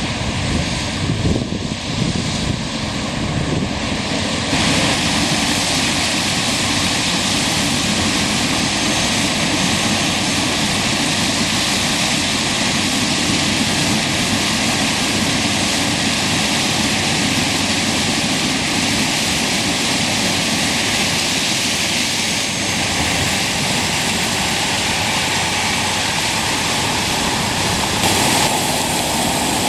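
Claas Lexion Terra-Trac combine harvester running steadily while harvesting maize: heavy diesel engine and threshing machinery noise. The sound grows brighter and hissier about four seconds in.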